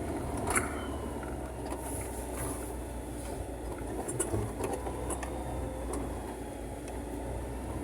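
Car driving, heard from inside the cabin: a steady low engine and road rumble with scattered light knocks and rattles.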